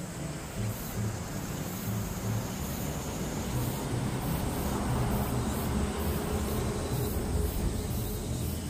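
Background music with a steady beat, under a low, noisy rumble that builds toward the middle and eases near the end.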